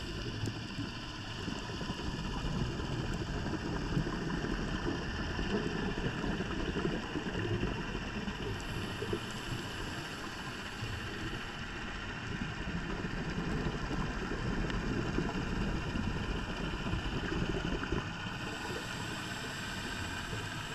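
Scuba diver's regulator breathing and exhaust bubbles heard underwater through the camera housing: a muffled, steady rushing and burbling that rises and falls over several seconds.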